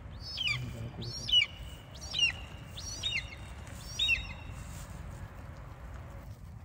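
A bird calling five times, about a second apart, each call a high whistled note that falls in pitch.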